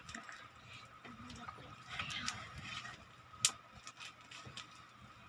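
Handling noise from unboxing a microphone and sound card kit: light taps and clicks of parts and packaging being handled, a brief rustle about two seconds in, and one sharp click about three and a half seconds in, over a faint steady high tone.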